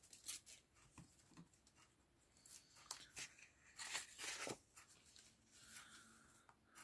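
Faint rustling and sliding of sheets of patterned scrapbook paper as they are handled and turned over, in a string of short, soft strokes.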